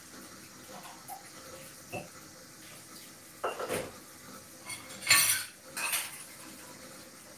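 Plates and cutlery clattering while dishes are washed up: a light knock about two seconds in, then three short bursts of clatter in the second half, the loudest about five seconds in.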